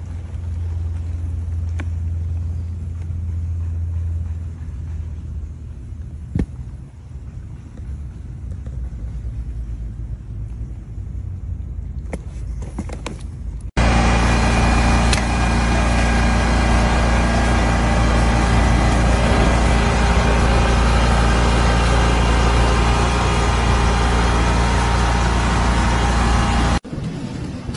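Engine of a ride-on road line-striping machine running steadily. It starts abruptly about halfway through and stops abruptly near the end; before it there is a quieter low steady hum with a few sharp clicks.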